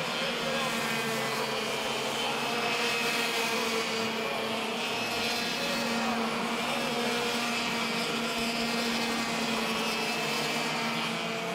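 Several racing go-kart engines running hard as the karts lap the track, making a steady, layered engine drone without a break.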